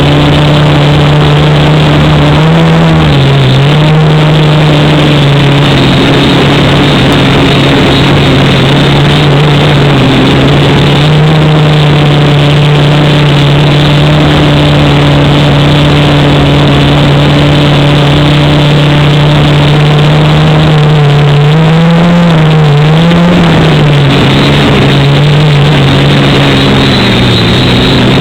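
Quadcopter's electric motors and propellers giving a loud, steady buzz. The pitch wavers briefly about three seconds in and again around twenty-two seconds in.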